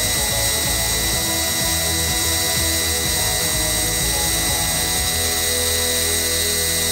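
Gravity-feed compressed-air spray gun hissing steadily while spraying paint, over a low steady motor hum that shifts slightly about five seconds in.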